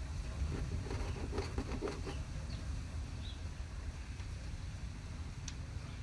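Light clicks and rustling of a propane hose fitting being handled and connected to a portable gas grill, over a low steady rumble.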